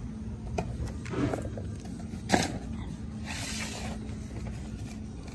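Steady low hum with handling noises: a sharp click a little over two seconds in and short bursts of rustling.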